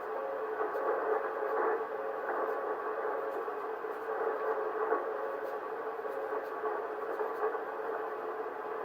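Amateur radio receiver audio during a Morse code (CW) contact: band static hiss heard through a narrow receiver filter, with a steady Morse tone.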